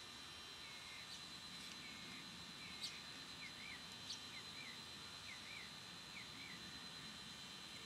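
A bird calling in a run of short, repeated chirps, about two a second, that stop a little over six seconds in. Under it is a faint low buzz, and two sharp clicks come in the middle.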